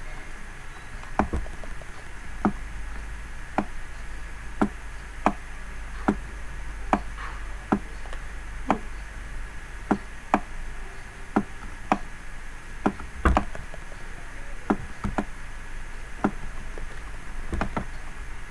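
Computer mouse button clicking, some twenty sharp clicks at an uneven pace of about one a second, as pen-ink strokes on a PowerPoint slide are erased one by one. A faint steady hum sits underneath.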